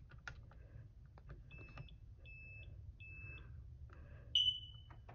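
Smoke alarm with a broken horn sounding weakly on test: three short, faint beeps about 0.7 s apart in the alarm's three-beep pattern, then a single louder chirp near the end that fades away.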